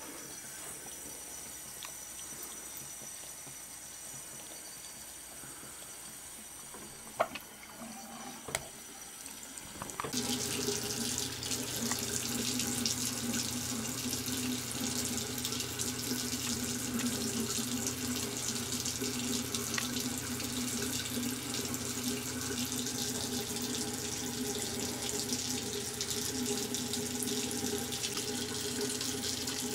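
Bathroom sink faucet running a thin stream of water into the basin, a steady splashing that starts abruptly about ten seconds in. Before that, only a faint steady hiss and two brief knocks.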